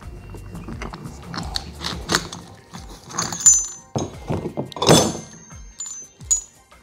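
Steel bearing-puller parts clinking and knocking against a transmission gear stack as the puller is taken apart, with short metallic rings and one loud clank about five seconds in.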